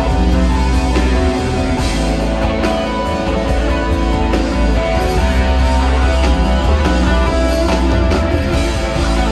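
Rock band playing live, an instrumental passage led by guitar over heavy, steady bass.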